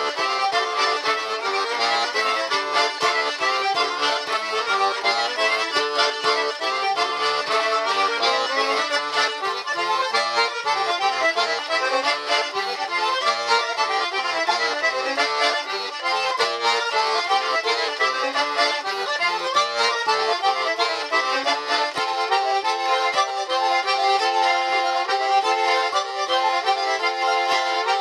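Accordion playing a traditional tune, with the tune moving into a new section about three-quarters of the way through.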